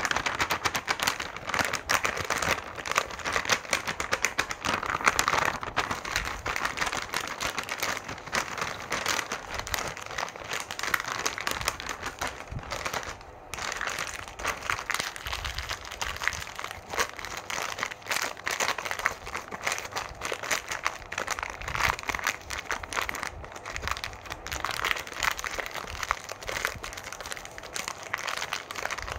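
Plastic wrappers of Cadbury Gems mini packets crinkling and crackling as they are handled, a continuous stream of fine crackles with a brief lull about halfway.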